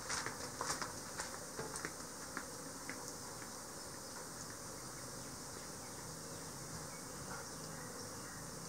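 A steady, high-pitched insect drone, with a few light clicks and crinkles in the first three seconds from gloved hands squeezing a cloth strainer bag of honey.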